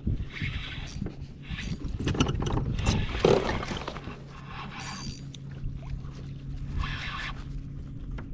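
Scraping and knocking aboard a fishing kayak, with a steady low hum starting about four seconds in.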